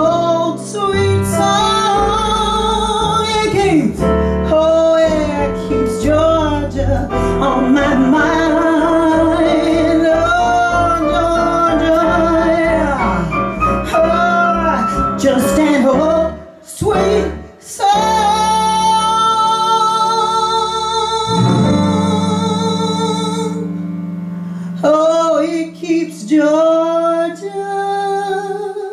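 Female vocalist singing a slow bluesy ballad into a microphone, accompanied by upright bass and keyboard. About two-thirds through, after a brief pause, she holds one long note.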